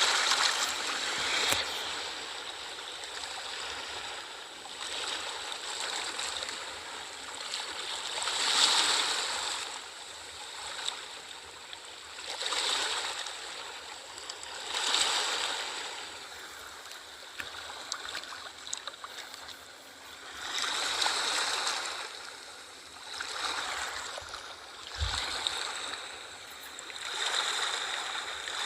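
Ocean waves breaking and washing on a shore, the hiss of surf swelling and falling back every few seconds.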